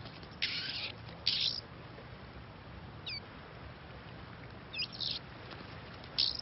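Oriental magpie-robins calling: four short harsh rasping calls, with a couple of quick thin whistled notes in between.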